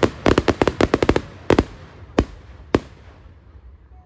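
Fireworks going off: a rapid volley of sharp bangs for about the first second, then three single bangs spaced further apart, the last dying away into a fading rumble.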